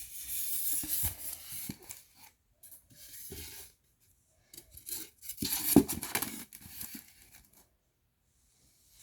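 A round cake box and its plastic lid being rubbed and scratched close to the microphone in three crinkly bursts. The loudest burst, about two-thirds of the way in, has a few sharp clicks.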